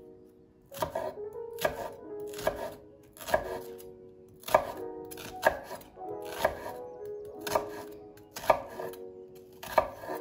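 Chef's knife slicing down through half an onion and knocking on a wooden cutting board, a sharp cut about once a second.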